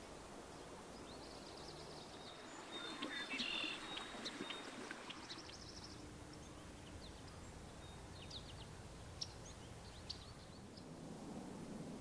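Small songbirds calling faintly over a steady outdoor hiss: a brief burst of high, rapid notes about three seconds in, then scattered single high chips.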